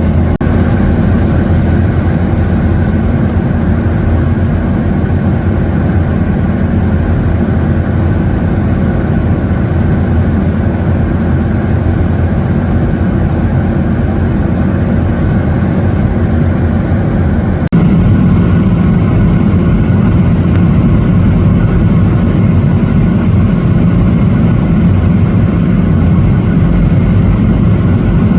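Steady cabin noise of an airliner in flight: a continuous engine drone with a rush of air. About 18 s in, the sound changes abruptly, becoming slightly louder with a different low hum.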